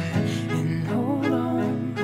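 Background music from a pop ballad: a wavering melody line over sustained low notes.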